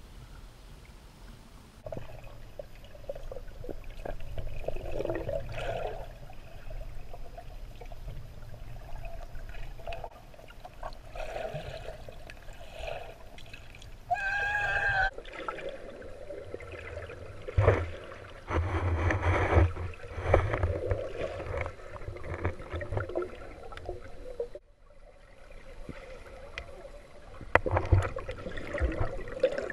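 Muffled underwater sound through a hand-held camera's waterproof housing: water gurgling and sloshing, with a few sharp knocks from the housing being handled. A short wavering tone sounds a little before halfway.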